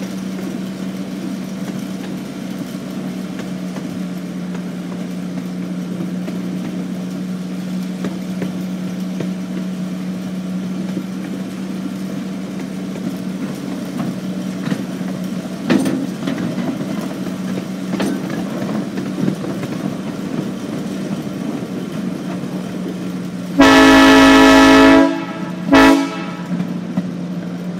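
A one-third-scale park train running, with a steady low hum from the moving train and a couple of light knocks. Near the end the train's horn sounds one long blast of about a second and a half, then a short toot.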